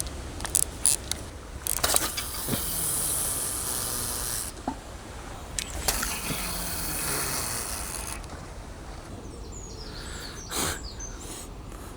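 Outdoor background noise: a steady low rumble under a high hiss that swells about two seconds in and fades about eight seconds in, with a few scattered clicks and knocks.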